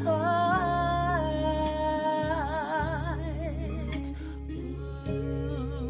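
Gospel song: a singer draws out the word 'my' in a long run of held notes with a wavering vibrato, coming to 'heart' near the end, over a steady bass accompaniment.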